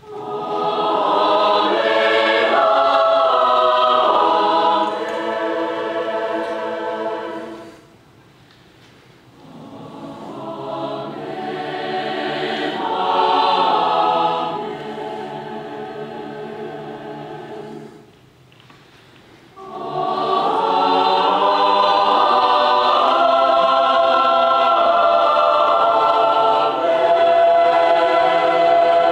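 Mixed college concert choir singing in three sung phrases with two short rests between them, the middle phrase softer and swelling up and back down, the last one full and loud.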